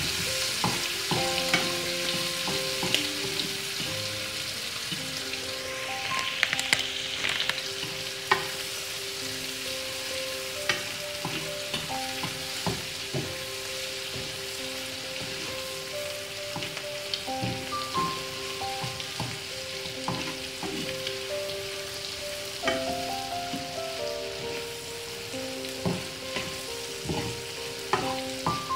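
Curried lobster heads frying in hot oil in a non-stick frying pan, with a steady sizzle. A metal spoon stirs through them, clicking and scraping against the pan at irregular moments.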